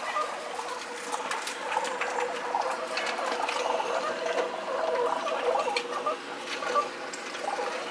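Feral pigeons pecking and scrabbling on a tiled window ledge: a dense run of quick taps and clicks over a busy, steady background, played at double speed.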